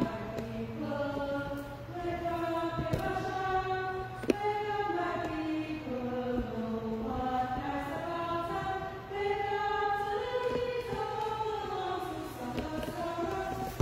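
Voices singing a slow church hymn in long, held notes, over a steady low hum. One sharp click about four seconds in.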